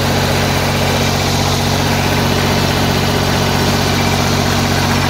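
The replacement diesel engine of a light tower generator, freshly installed after the old one was ruined by running on gasoline, running steadily at a constant speed. The engine is loud and close.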